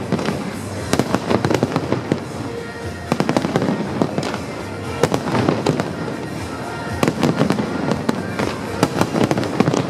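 Fireworks display going off: dense clusters of sharp cracks and bangs, one burst after another, with brief lulls between the volleys.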